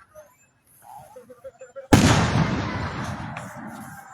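Aerial firework shell bursting: one sudden loud boom about two seconds in, followed by a long echoing tail that slowly fades.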